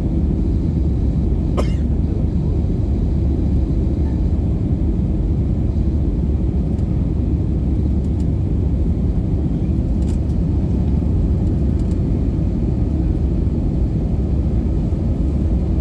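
Steady low drone inside the cabin of an Airbus A320 climbing after takeoff: engine and airflow noise heard from a window seat. There is a brief click about one and a half seconds in.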